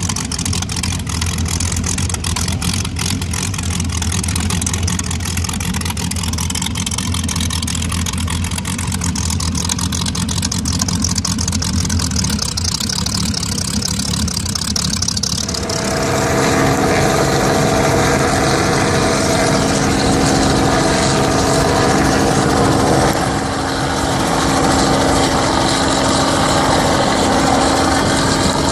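Powerboat engines idling low as the boats move slowly in line. About halfway through, the sound switches abruptly to a louder, steadier engine drone with several held tones.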